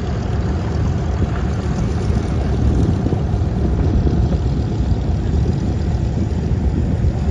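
A vehicle's engine running with a loud, steady, low rumble.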